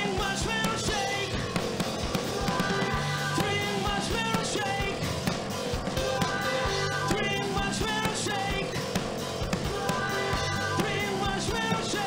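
Live rock band playing: drum kit, electric bass and keyboards, with a male voice singing into a microphone.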